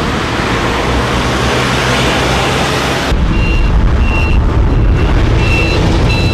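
A steady rushing noise, then about three seconds in a deep vehicle rumble with a short high electronic beep repeating about every two-thirds of a second.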